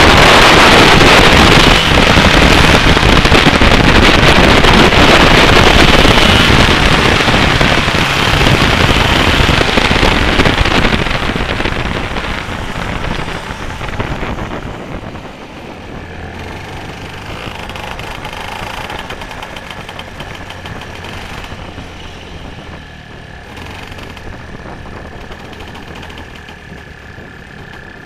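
125cc two-stroke kart engine running hard, loud with wind on the microphone, then easing off about halfway through and running much quieter and steadier as the kart slows.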